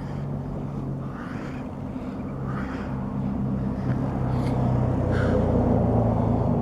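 Low, steady engine drone of a motor vehicle, getting louder in the second half, with a few soft puffs of noise over it.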